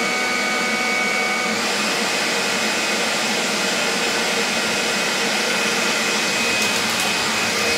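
Greenworks 24V battery axial-fan leaf blower (BLG306) running, a steady rush of air with a motor whine. The whine steps up in pitch about a second and a half in as the blower moves to a higher speed.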